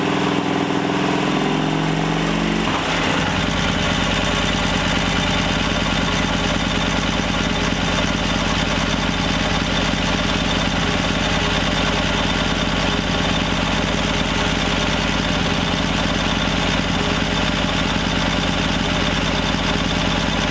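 Excelsior-Henderson Super X V-twin motorcycle engine idling steadily. Its tone changes a little under three seconds in, then holds even.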